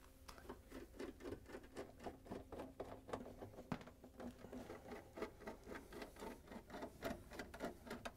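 Torx 15 screwdriver backing out the screws that hold a dishwasher's outer door panel: a faint, quick run of light clicks, about four a second.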